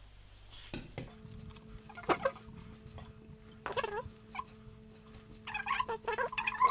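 Gloved hand mixing and squeezing wet flour into pizza dough in a bowl: short squelching, squeaky sounds of the glove working through the sticky mass, busier near the end. A faint steady hum comes in about a second in.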